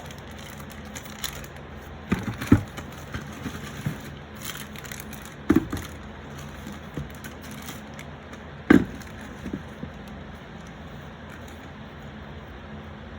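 A cardboard box being opened and its packaging handled, with a few sharp knocks and thuds scattered through, the loudest about two and a half, five and a half and nine seconds in.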